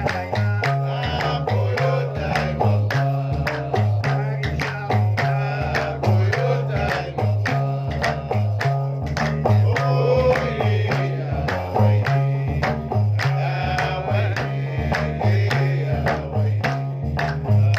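Gnawa music: a guembri plucked in a repeating low bass riff, with men singing over it and sharp percussive clicks keeping an even beat.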